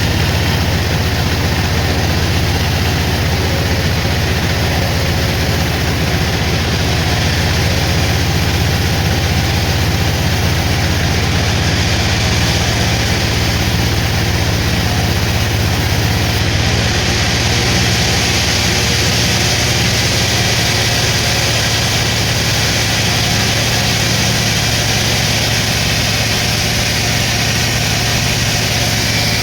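Sawmill machinery running steadily, a heavy engine hum under a wide mechanical noise. A higher hiss comes in just past halfway.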